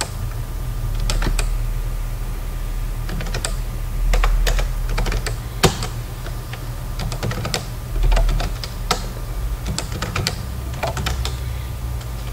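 Typing on a computer keyboard: irregular keystrokes, some in quick runs, others spaced out, over a steady low hum.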